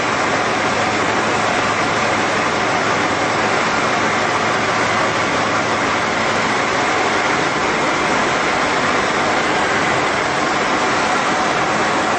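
Steady in-flight cabin noise of a Tecnam P2002 Sierra light aircraft, heard from inside the cockpit. Its Rotax 912 flat-four engine and propeller drone on evenly under the rush of air past the airframe, with no change in power.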